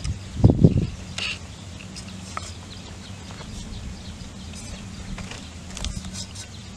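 Whole raw fish being laid by hand into a metal pot on a bed of lemongrass stalks: a couple of dull thumps about half a second in, then small clicks and rustles of handling over a faint steady hum.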